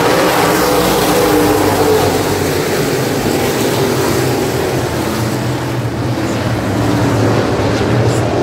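Engines of a pack of dirt-track super stock race cars running steadily as they circle the track.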